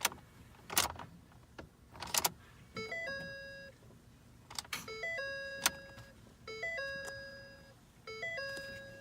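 Dashboard warning chime of a 2012 Ford F-250 sounding four times, about every two seconds, each a quick stepped tone followed by a held tone that fades. Sharp clicks come in among the chimes. This happens while the truck's electrics act erratically and the engine will not start.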